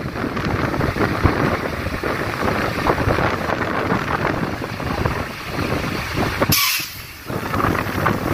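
Steady rumbling noise of idling water-tanker trucks, with wind buffeting the microphone. About six and a half seconds in the rumble drops away for under a second behind a short hiss.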